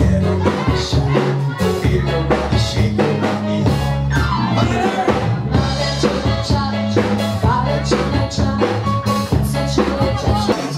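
Loud dance music with a steady drum-kit beat and a bass line.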